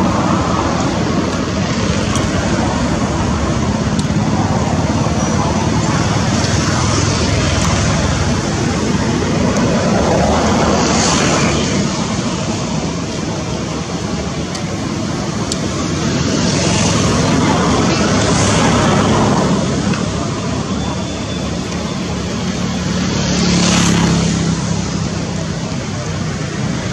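Steady road-traffic noise, a continuous rush that swells and fades a few times as vehicles pass.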